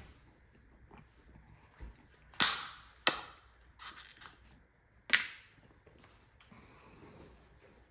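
Clear plastic takeout clamshell containers being handled, giving a few sharp plastic snaps and crackles: three loud ones about two and a half, three and five seconds in, with a quicker run of smaller crackles around four seconds.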